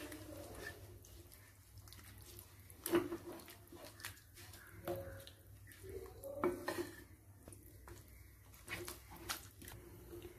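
Spatula scraping and knocking against a non-stick kadai as chopped tomatoes and chicken pieces are stirred together. Quiet, with scattered knocks, the loudest about three seconds in.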